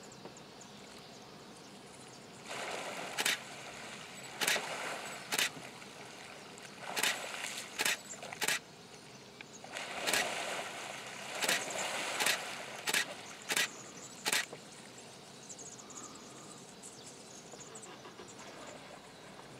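Nile crocodiles thrashing and splashing in shallow water as they tear at prey: several bursts of splashing between about two and fifteen seconds in, with sharp clicks among them, then calmer water.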